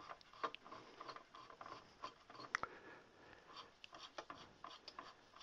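Faint, irregular small clicks and scraping from a Bendix AA5 tube radio's tuning knob and dial-cord drive as the knob is turned and the pointer travels across the dial.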